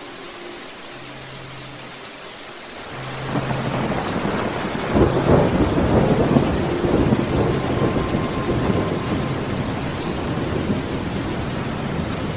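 Steady rain with a roll of thunder that builds about three seconds in, is loudest a couple of seconds later, then slowly eases back into the rain.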